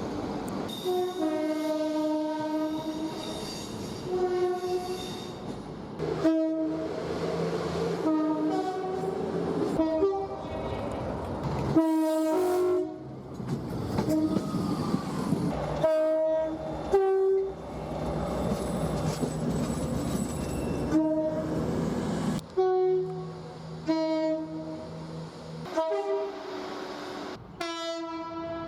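British trains sounding their two-tone horns in a run of short clips, each blast stepping between a higher and a lower note. Train running noise sits underneath, and the sound changes abruptly every few seconds as one clip gives way to the next.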